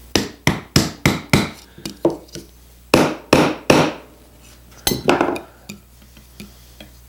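Hammer tapping a wooden dowel into a broken rocking-chair frame piece: a string of sharp wooden knocks, about six in the first two seconds and three more a second later. One louder knock comes near 5 s, followed by a few faint clicks.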